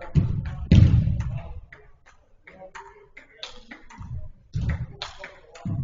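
Indoor football game: a ball being kicked and thudding, several sharp thumps with the loudest about a second in, among players' faint shouts and footsteps.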